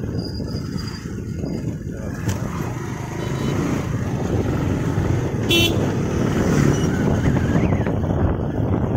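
Motorcycle riding along a road: engine, tyre and wind noise running steadily, with one short vehicle horn beep a little past halfway.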